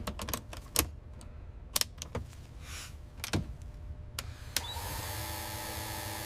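A run of sharp mechanical clicks and clunks, then about four and a half seconds in a steady motor hum with a whine starts up and keeps going.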